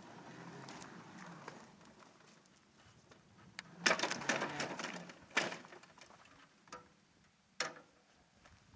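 Maxitrak Planet 2 7¼-inch-gauge garden-railway locomotive with its wagon running slowly on the track: a faint hum, then a loud burst of clattering knocks from about four to five and a half seconds in, and two more single sharp knocks near the end.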